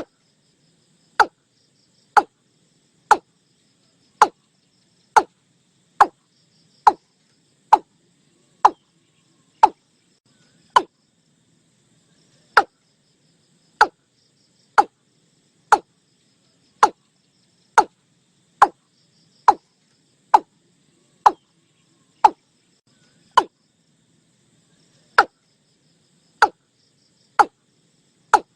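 Watercock calling: a long series of short, sharp notes, each dropping quickly in pitch, about one a second, with a couple of brief pauses.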